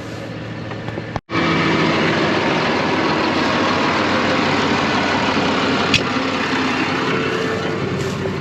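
New Holland TX62 combine harvester running steadily while cutting wheat. The sound drops out for a split second about a second in and comes back louder, with a single sharp click near the middle.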